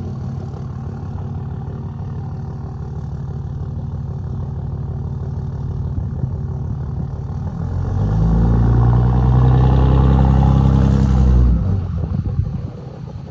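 Diesel pickup engine running steadily, then revving up about two-thirds of the way through, its pitch rising, before dropping off suddenly.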